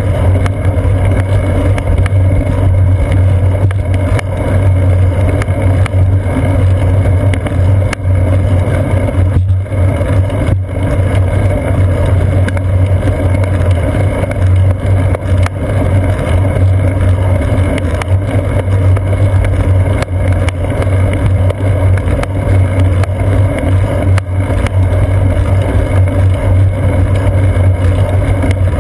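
Wind and road vibration picked up by a GoPro Hero 2 mounted on a moving bicycle's seat post: a loud, steady low drone with no breaks.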